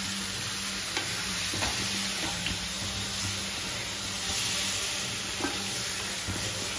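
Chicken curry frying in a pan, sizzling steadily while it is stirred, with a few sharp clinks of the spoon against the pan. A steady low hum runs underneath.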